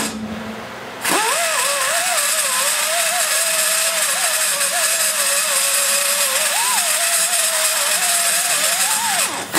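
High-speed straight die grinder with a fluted carbide cutter, running at a high whine and cutting metal inside a big-block Chevy cylinder head's exhaust port to level the hump around the bolt-hole tube. Its pitch wavers as the cutter is loaded against the port wall. It winds up about a second in and eases off briefly near the end.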